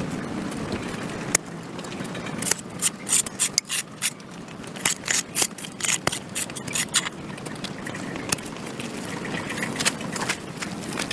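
A hand tool scraping packed dirt and grass off a concrete sidewalk in a quick run of short strokes, densest from about two and a half to seven seconds in, over a steady low rumble.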